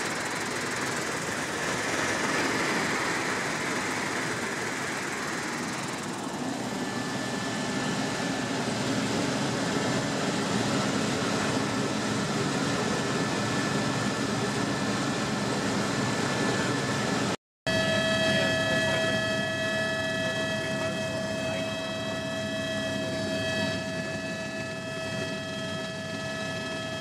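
Helicopter in flight heard from inside the cabin: steady engine and rotor noise with high, steady whining tones. The sound drops out for a moment about two-thirds of the way through, and the whine is stronger after it.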